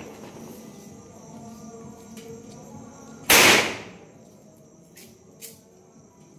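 A misfired firecracker goes off in a diesel-fed fire with one loud bang about three seconds in, trailing off briefly. Two small sharp pops follow a couple of seconds later.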